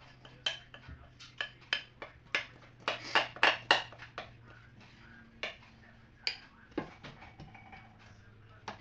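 Irregular clinks and taps of kitchen utensils and dishes being handled, busiest and loudest about three to four seconds in, over a faint steady low hum.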